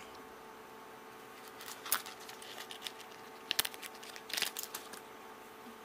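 Soft crinkling of clear plastic packaging with light clicks as small metal soldering iron tips are handled, in a few short bursts about two, three and a half, and four and a half seconds in.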